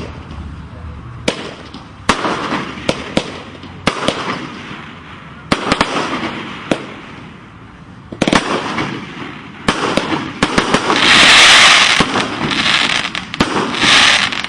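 Fireworks going off: a run of sharp separate bangs, then a loud, dense crackling burst of many small reports over the last few seconds, the loudest part.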